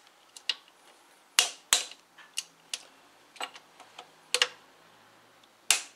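Irregular sharp metallic clicks and taps of hand tools working the ignition coil pack's mounting bolts as the pack is fastened down on the Audi V6, a few of them loud.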